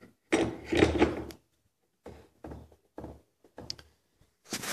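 Handling noise from a homemade lathe's tool rest as it is lifted and fitted in its base: a loud cluster of knocks and scrapes of the steel post and board parts about a second in, then several shorter, quieter clunks and another burst near the end.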